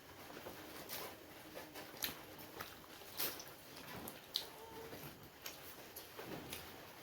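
Quiet eating sounds of people chewing steamed momos, with scattered soft mouth and utensil clicks about once a second.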